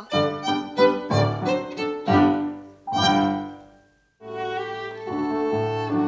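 Background music led by a violin: a run of short notes, a brief break about four seconds in, then longer held notes.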